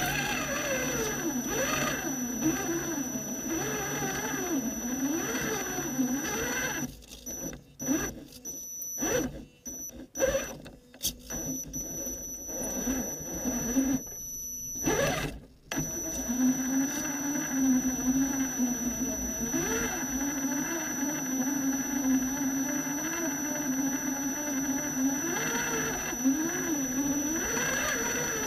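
Electric motor and gear drivetrain of an Axial SCX10 Honcho 1/10 scale RC rock crawler whining, heard from a camera mounted on the truck, the pitch rising and falling with the throttle, alongside a steady high whine. For several seconds in the middle it drops out and comes back in short bursts as the truck stops and starts, then runs steadily again.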